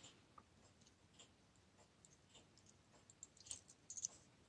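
Near silence with faint, scattered clicks of a watchmaker's screwdriver on the balance-bridge screw of a pocket watch movement, a small cluster of clicks about three and a half to four seconds in.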